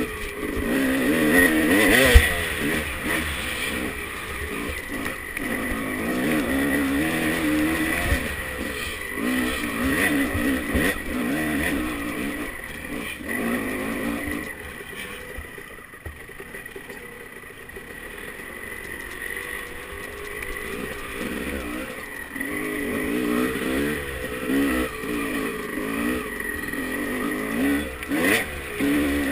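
Dirt bike engine running on rough trail, its pitch rising and falling with the throttle, easing off and quieter for several seconds in the middle before picking up again, with a sharp knock about two seconds in.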